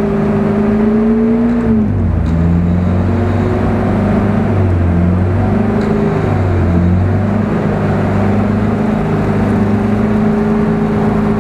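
Toyota Land Cruiser stuck in deep mud, its engine and winch running under load. A steady whine drops in pitch about two seconds in, then wavers up and down as the pull strains.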